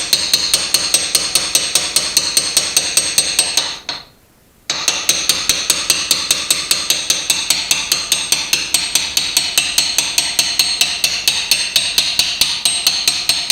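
Small hammer tapping a steel 1/4 inch punch to drive the pad retaining pin out of a Porsche 987 rear brake caliper: rapid, even metallic taps, about five a second, with a short pause about four seconds in.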